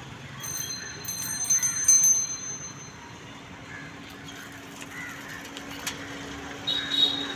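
A small bell ringing in rapid high strokes for about a second and a half, then a faint steady low drone. Birds chirp over outdoor ambience throughout.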